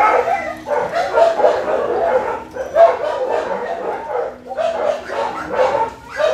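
Shelter dogs in a kennel row barking, with a near-continuous din of overlapping barks and yips that dips only briefly about two and a half seconds in and again near the end.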